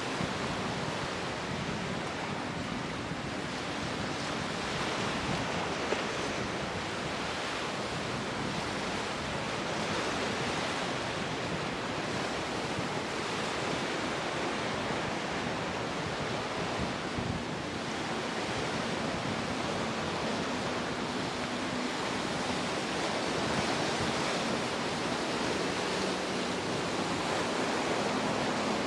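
Rough sea surf, waves breaking and churning steadily, with wind buffeting the microphone. A faint steady hum from the boat's outboard motors runs underneath.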